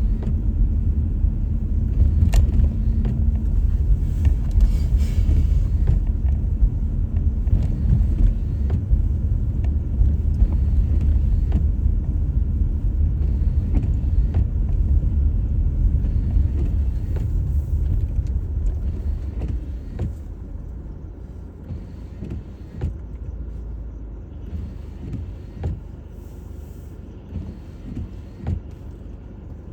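Car driving on a snowy road: a steady low rumble of engine and tyres, with scattered knocks and clicks. The rumble fades about twenty seconds in, leaving a quieter hum with occasional knocks.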